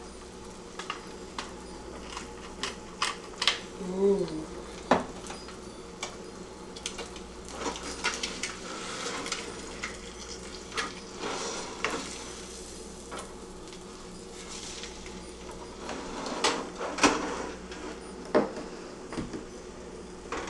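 A spatula clinking and scraping against a stainless steel frying pan as a fried egg is turned, with scattered sharp clicks and knocks throughout.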